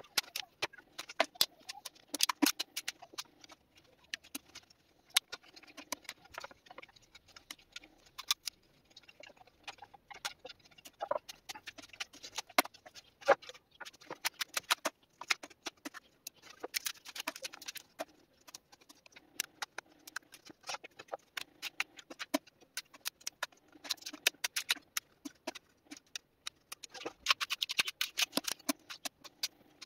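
Irregular clicks, taps and scratching of wood on wood as pine boards are shifted and stacked. A flathead screwdriver scrapes wood fibres out of the cut grooves in the boards' edges.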